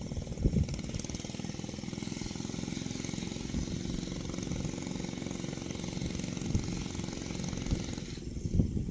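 A small engine running steadily, with a few low thumps over it.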